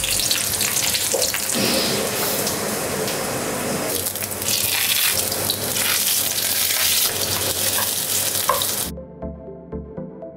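Thin eggplant strips sizzling in oil in a frying pan, with a few light knocks as tongs turn them. About nine seconds in, the sizzle cuts off and electronic background music with a steady beat takes over.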